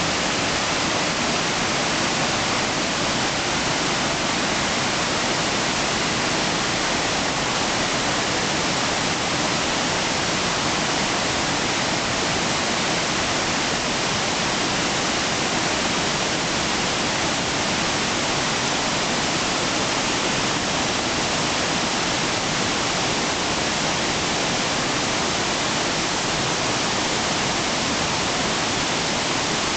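A waterfall about 70 ft high, and the cascades over boulders below it, rushing steadily: a loud, unbroken rush of falling water.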